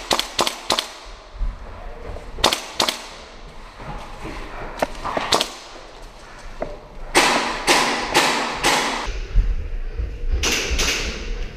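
Gas-blowback airsoft rifle fire: sharp cracks of single shots and short strings, a quick string at the start and then shots in pairs and small groups.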